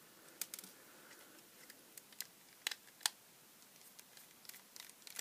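Faint, scattered clicks and ticks of a small flat-blade screwdriver working the tiny, watch-sized screws in a cheap plastic dashcam case, with a couple of sharper clicks near the middle.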